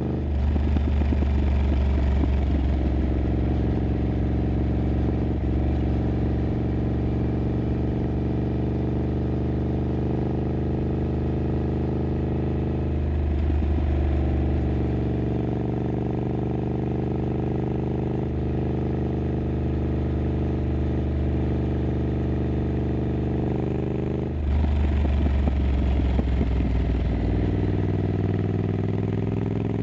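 Triumph Scrambler 900's parallel-twin engine running through an aftermarket exhaust while riding. The throttle opens at the start, again about 13 seconds in and again about 24 seconds in, with steady cruising between.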